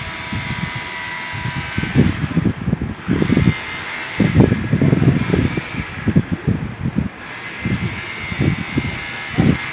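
Construction noise from a rotary hammer at work: a steady mechanical noise with a faint whine, broken by irregular low thuds.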